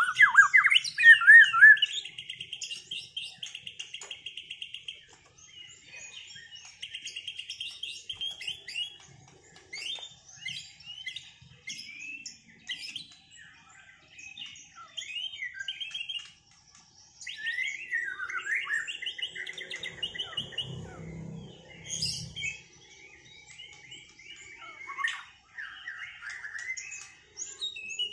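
White-rumped shama singing: a loud run of fast rising and falling whistles at the start, then a long string of varied short phrases, chirps and buzzy trills broken by brief pauses.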